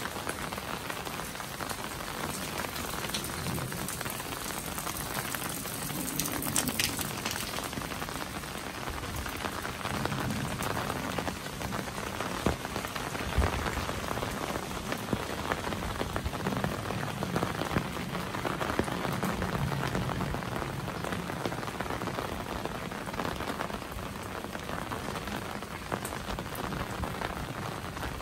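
Steady rain falling, a dense hiss with many small drop taps all through.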